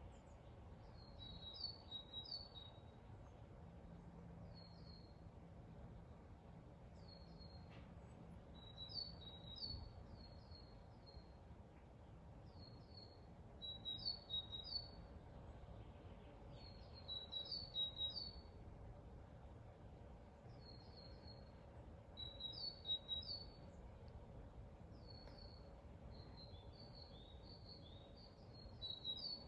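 A songbird singing short phrases of three or four high, quickly falling chirps, repeated every few seconds. A faint, steady low background runs under it.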